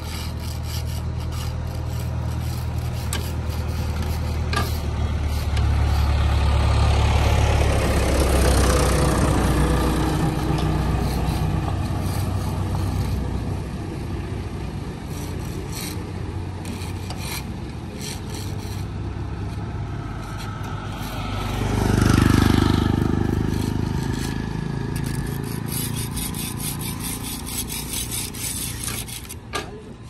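Hand-pushed thermoplastic road-marking machine running as it lays a line, a steady low hum with a rough scraping noise over it. A louder rushing swell comes about two-thirds of the way through.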